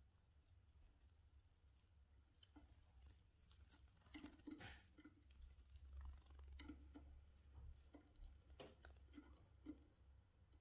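Zebra finch moving about close by: faint, scattered light taps and scratches, over a low steady hum.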